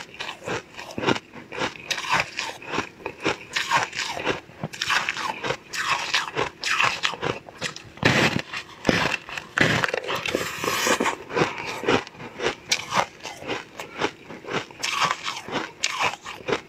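Crunchy bites and chewing into a dry, crumbly purple star-shaped block of food, close to the microphone: a run of sharp, uneven crunches with no set rhythm.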